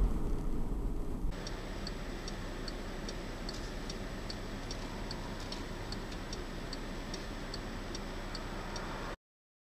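A car's turn-signal indicator clicking steadily, about two and a half clicks a second, over the low hum of the cabin while stopped in traffic. The clicking cuts off suddenly near the end. Low road rumble from a moving car is heard in the first second.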